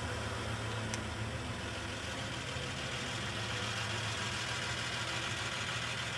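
Pickup truck engine running steadily as the truck rolls slowly, an even low hum.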